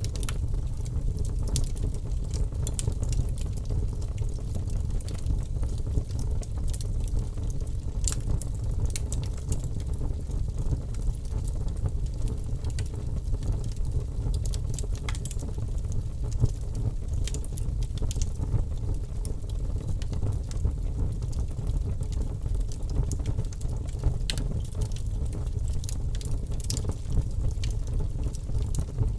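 Wood fire burning in a fireplace: a steady low roar with frequent irregular crackles and sharp pops from the burning logs.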